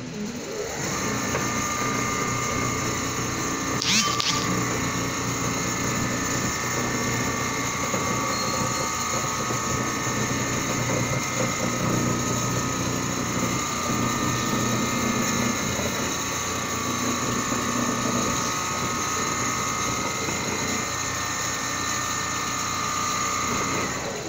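Large-format CNC sewing machine stitching a quilted panel: a fast, steady needle rattle under a high, even motor whine. It starts up about a second in and drops away at the very end.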